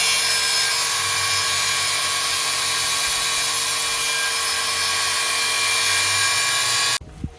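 Electric power tool running with a steady whine, stopping suddenly about seven seconds in.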